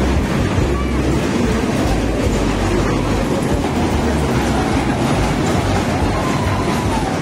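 Steady rumbling, clattering din of fairground rides running, a carousel and a spinning ride in motion, with a heavy low rumble.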